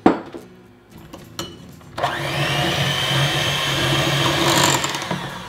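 A sharp knock, then about two seconds in an electric hand mixer switches on and runs steadily with a whine, its beaters working waffle batter in a glass bowl.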